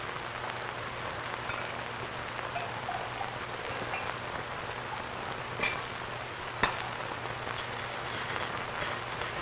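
Steady hiss and crackle of an old film soundtrack, with a low steady hum under it and one sharp click about two-thirds of the way through.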